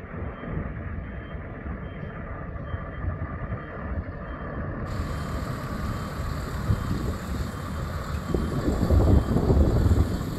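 JCB diesel engine of a 60-tonne WISE boat hoist running as it drives and steers, with its movement warning beeper sounding a short tone a little under twice a second. A louder low rumble swells near the end.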